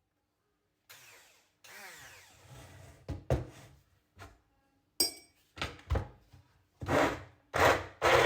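A string of short knocks, rubs and clicks from handling a kitchen mixer and its utensils. Near the end an electric kitchen mixer's motor starts and runs steadily.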